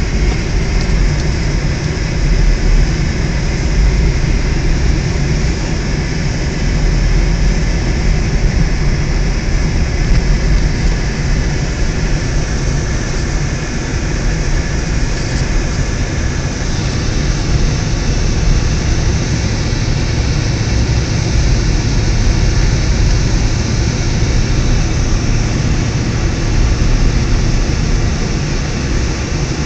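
Steady engine and road noise inside a car's cabin as it drives along a snow-covered road: a loud, constant low rumble with a hiss over it.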